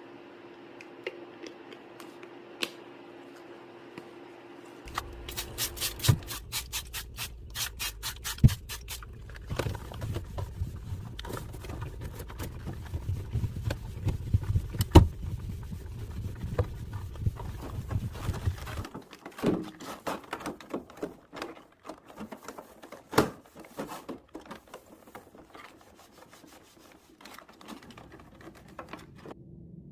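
Rubbing and scraping against a surface, with a quick run of sharp ticks and scattered knocks. A faint steady hum stops about six seconds in.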